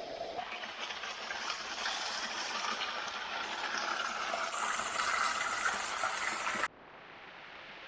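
Steady rush of falling water from a waterfall; near the end it cuts off abruptly to a quieter, duller rush.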